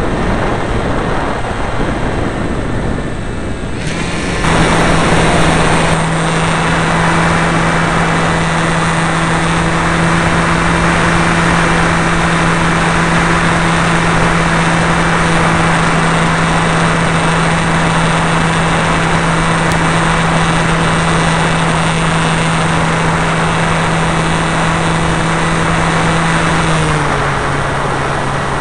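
Radio-controlled model plane's motor and propeller, recorded from the plane itself by its on-board camera, with wind rushing over it. For the first few seconds it is mostly wind noise; then a loud, steady drone at constant throttle takes over, and near the end its pitch drops a step as the throttle is eased back.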